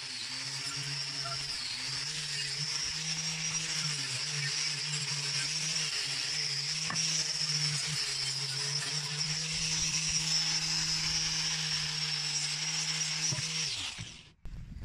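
Angle grinder with a sanding disc running steadily against a steel plate, giving a constant motor hum under a high abrasive hiss; it stops shortly before the end.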